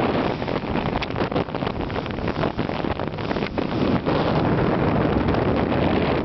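Strong wind buffeting the microphone: a loud rushing noise broken by frequent gusty thumps.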